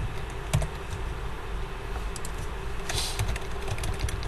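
Typing on a computer keyboard: irregular key clicks, with a sharper click right at the start, over a low steady hum.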